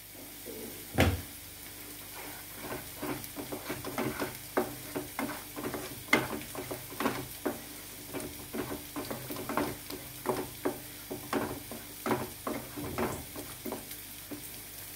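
Plastic spatula stirring and scraping thick tomato-onion masala in a nonstick kadai: short, irregular scrapes and taps, two or three a second, over a low sizzle of the masala frying. There is one louder knock about a second in.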